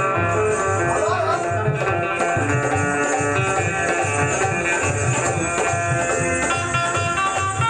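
Bulbul tarang (Indian banjo) playing a plucked melody, with tabla and dholak keeping a steady beat underneath.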